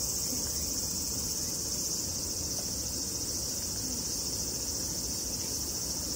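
Steady, high-pitched chorus of insects in the grass, running evenly without a break.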